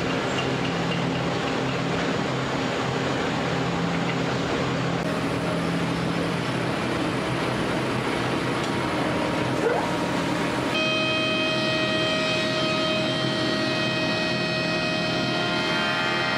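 Woodworking machinery running steadily, changing abruptly twice; in the last few seconds a machine adds several steady whining tones.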